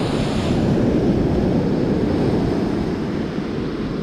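Wind buffeting the microphone as a steady low rumble over the rush of breaking surf on an open beach.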